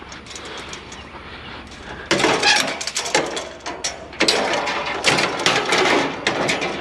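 Clattering and scraping of a long, light piece of scrap being handled and pushed onto a trailer, starting loudly about two seconds in with many sharp knocks and rattles.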